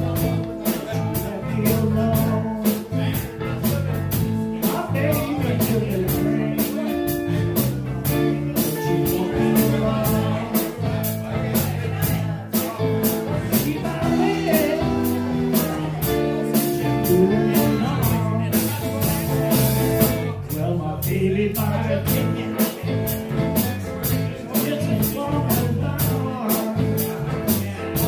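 Live electric blues band playing: electric guitars, bass and drum kit on a steady beat with cymbals, and a harmonica played through the band's sound.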